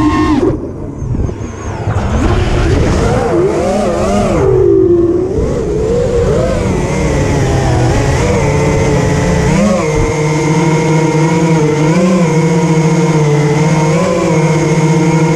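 The brushless motors and propellers of an Armattan Chameleon FPV quadcopter (Cobra 2205 2500KV motors), heard from the craft itself. The whine climbs and falls with the throttle and drops away briefly about a second in. For the second half it holds a steadier pitch with small rises as the quad flies low.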